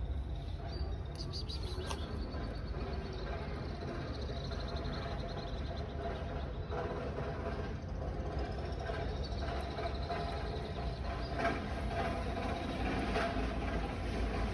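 Steady low rumble of background noise, with faint voices and a few light clicks.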